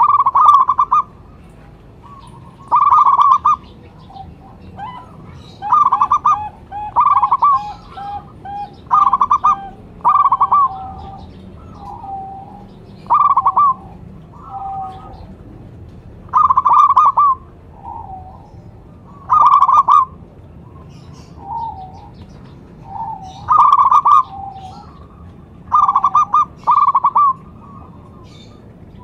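Zebra dove (perkutut) cooing: loud short phrases of quick cooing notes about every three seconds, with softer, lower coos between them.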